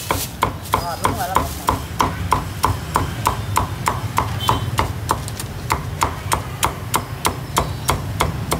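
A cleaver chopping through roast pork onto a wooden chopping block: an even run of sharp knocks, about three a second.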